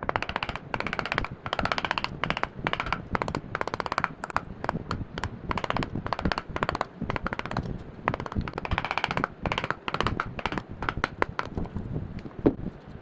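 Hand tools working wood: a rapid, irregular run of sharp clicks and short scraping strokes.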